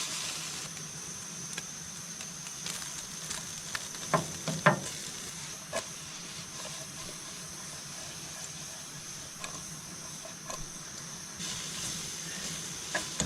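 Steak chunks sizzling as they sear in a pan, the water cooked off: a steady hiss with a few sharp clicks and knocks, the loudest about four to five seconds in.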